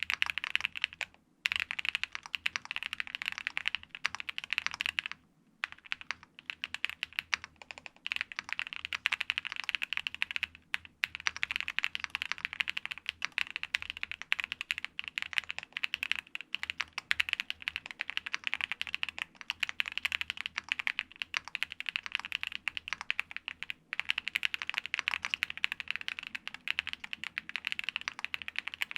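Fast continuous typing on a Qwertykeys QK65 gasket-mount mechanical keyboard fitted with factory-lubed Angry Miao Icy Silver linear switches, lubed OWLstab stabilizers and ABS keycaps. Rapid clacky keystrokes with a few brief pauses, the first about a second in.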